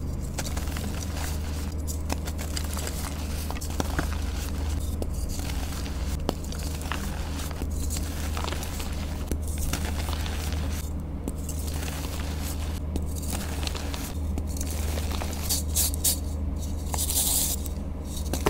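Soft reformed dyed gym chalk being crushed and crumbled between fingers: a steady soft crunching with scattered small crackles over a low steady hum, and a brief brighter powdery hiss near the end.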